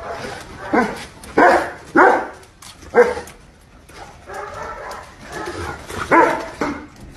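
An animal giving several short, loud bark-like calls with gaps between them. The loudest come in the first three seconds, and another follows near the end.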